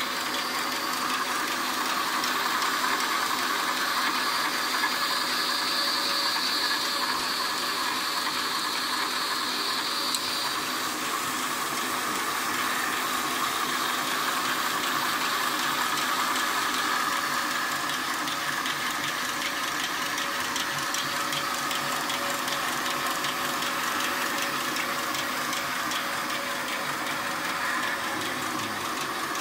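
Stainless-steel scourer weaving machine running: a steady, fast mechanical clatter of rapid ticks from its rotating circular head, with a higher hiss over it for about the first ten seconds.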